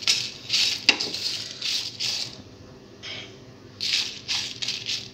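Wooden spatula stirring whole spices dry-roasting in a steel frying pan: bay leaves, coriander and cumin seeds rattle and scrape against the pan in quick strokes, with a sharp knock about a second in and a short pause in the middle.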